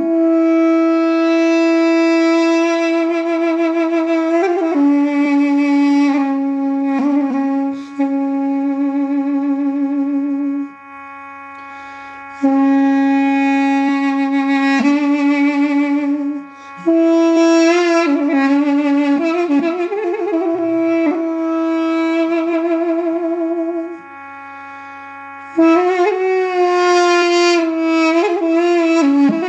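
Armenian duduk, a double-reed woodwind, playing a slow melody with vibrato and quick trill-like ornaments over a steady drone. The melody pauses twice between phrases while the drone carries on alone.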